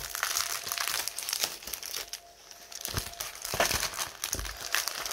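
Clear plastic sleeve and paper crinkling under handling as a diamond painting canvas is folded and rolled, with a short lull about two seconds in and a couple of soft thumps later on.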